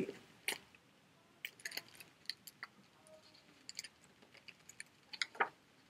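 Faint, scattered clicks and light rustles of a picture book being handled and its page turned.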